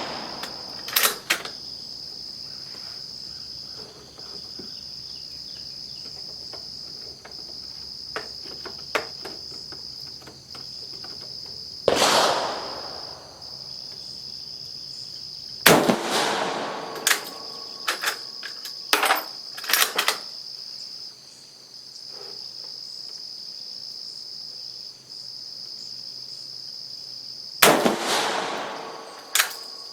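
Three rifle shots from a 7.35 mm Carcano M38 short rifle, about 12 s in, about 16 s in and near the end, each echoing as it dies away, with sharp metallic clicks of the bolt being worked between shots. A steady high insect trill runs underneath.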